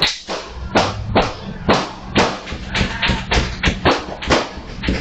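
Background music with a beat: sharp drum hits every half second or faster, quickening in the second half, over a steady low bass.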